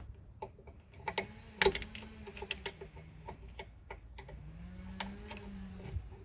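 Screwdriver turning the toothed adjuster wheels of a 1974 VW Beetle's rear drum brake through the backing plate, giving irregular sharp clicks. A low hum swells and fades twice behind the clicks.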